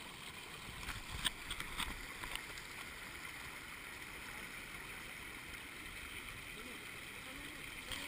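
Shallow creek water running steadily, with a few sharp knocks or splashes about one to two seconds in.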